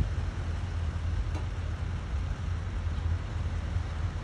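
Heavy diesel excavators working across the water, heard as a steady low engine rumble.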